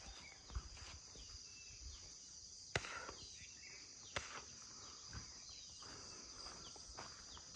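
Steady high-pitched insect chorus, with a handful of light, scattered knocks or taps.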